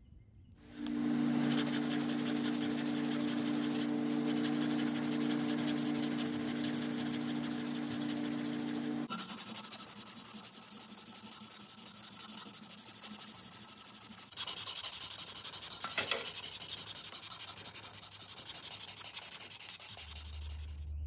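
A strip of sandpaper pulled rapidly back and forth around a round wooden cane shaft, hand-sanding it with a fast, steady rubbing. A steady hum sits under the first nine seconds, the sound changes abruptly about nine and fourteen seconds in, and there is a short click about sixteen seconds in.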